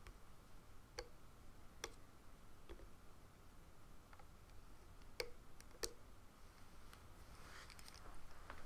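Faint, sparse clicks of a plastic hook knocking against the plastic pins of a Rainbow Loom as rubber bands are pulled off and looped, about five sharper clicks with a few fainter ones, and a soft rustle near the end.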